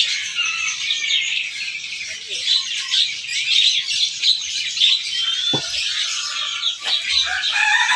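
Many small caged songbirds chirping and twittering at once, a dense overlapping chorus of short high calls with a single clear whistle about halfway through.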